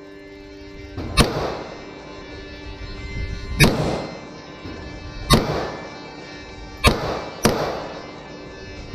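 Gunshots at a shooting range: five single shots fired at uneven intervals a second or two apart, each with a ringing, echoing tail.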